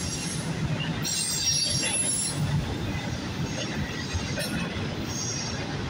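Freight train of autorack cars rolling past: a steady rumble of steel wheels on rail, with high-pitched wheel squeals about a second in and again around three and a half seconds in.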